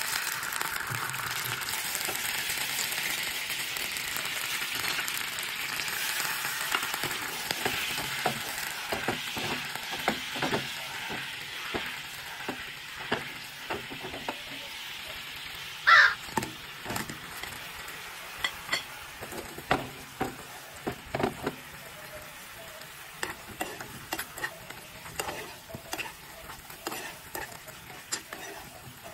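Water and sugar sizzling in a hot nonstick frying pan, the hiss loudest at first and dying down as it boils into syrup. Then a utensil clicks and scrapes against the pan, many times, as fried glutinous rice cakes are stirred and turned in the bubbling sugar syrup. One sharp clack about halfway through is the loudest.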